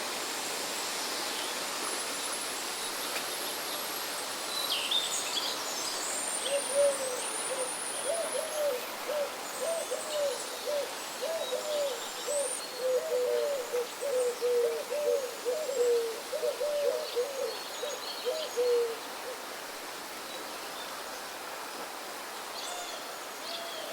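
Steady wind with birds chirping and whistling high up. From about six seconds in until about nineteen, a bird gives a long run of short, low notes, a couple a second.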